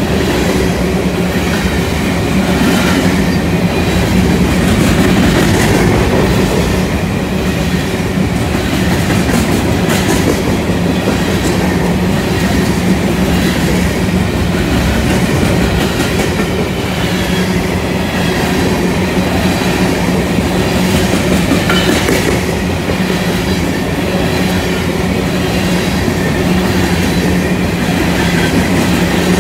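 Covered hopper cars of a BNSF freight train rolling past close by: a steady, loud rumble of steel wheels on the rails, with scattered clicks as the wheels cross rail joints.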